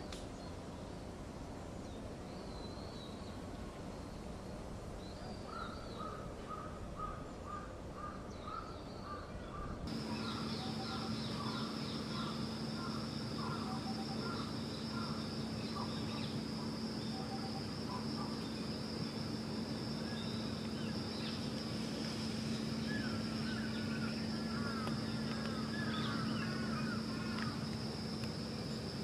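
Outdoor ambience with small birds chirping in short repeated series and brief call notes. About ten seconds in, the background changes abruptly and a steady hum joins the birds.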